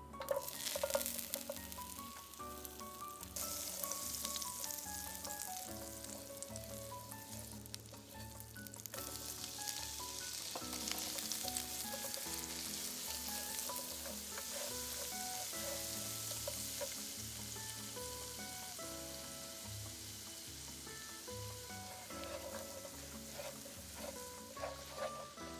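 Food frying in hot oil: a steady sizzling hiss with crackles, loudest in the first third and easing off toward the end. Light background music plays under it.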